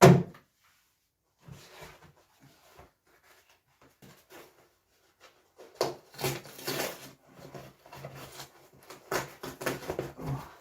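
Items being handled while unpacking a box: a loud knock at the start, a few faint clicks, then clattering and rustling from about six seconds in.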